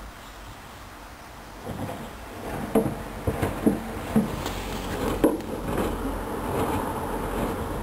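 Hoover Dynamic Wash 10+ washing machine on a mini-load wash: after a low hum, a run of irregular knocks and clunks from about two seconds in, then a steady churning noise as the drum turns.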